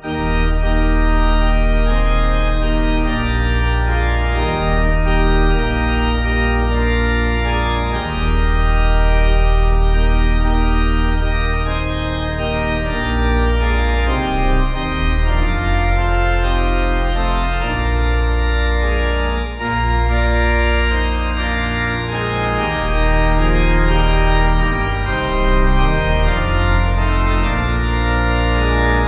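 Organ music playing slow, held chords, the bass notes changing every few seconds.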